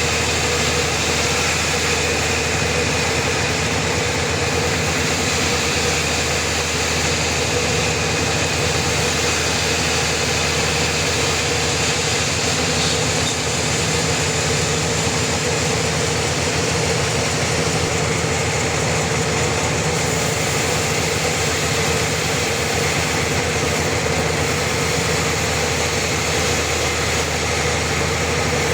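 Sawmill running steadily, a loud, even mechanical drone with a constant low hum and no breaks.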